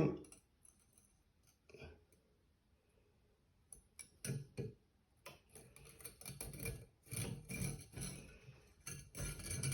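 Light clicks, ticks and small scraping noises of parts being handled as a new return spring is fitted over the barrel of a Dewalt DCN692 nail gun. They come mostly after the first few quiet seconds, as scattered short knocks.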